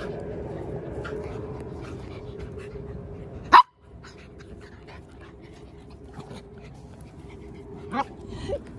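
Small dogs play-fighting, panting with short yips and scuffling. There is one loud sharp sound about three and a half seconds in, and a couple of quick yips near the end.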